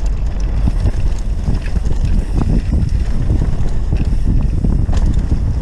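Wind rumbling on the microphone of a camera mounted on a mountain bike riding downhill, mixed with the tyres running over a dirt trail and scattered small knocks and rattles from the bike over stones.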